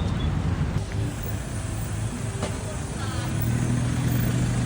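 Motor traffic: vehicle engines running with a steady low rumble, and a steady engine hum coming in near the end.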